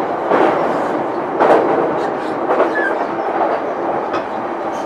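JR East E233-1000 series electric train heard from inside a motor car, running along with a steady rumble of wheels on rail, and a few clacks over rail joints about a second apart.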